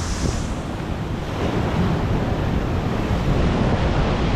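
Wind buffeting a GoPro's microphone as it rides on a moving electric scooter, a steady rush heaviest in the low end.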